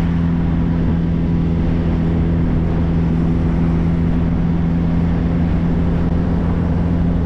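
MG Midget Mk3's small four-cylinder engine running at a steady speed, a constant low drone with rumble and road or wind noise.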